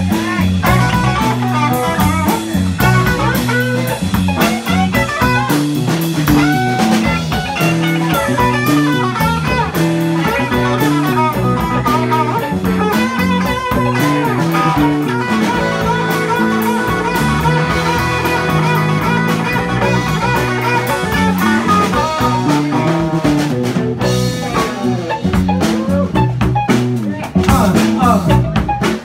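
Live blues-rock band playing: a lead guitar line with bent, wavering notes over bass and drum kit.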